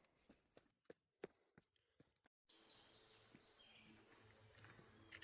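Near silence: a few faint scattered ticks, then from about halfway faint outdoor ambience with a few distant high bird chirps.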